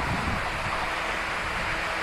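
Rushing air and rail noise from an express train that has just passed at over 90 km/h, with wind on the microphone; a faint steady tone comes in about halfway through.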